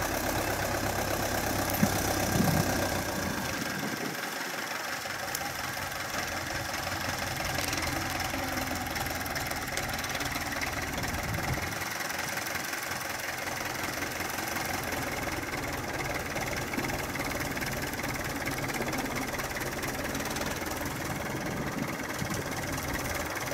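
Belarus 820 tractor's four-cylinder diesel engine running steadily under load as it pulls a heavily loaded cassava trailer.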